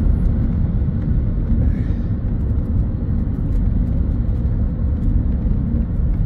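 Steady low rumble of a taxi driving at road speed, heard from inside the cabin: engine and tyre noise.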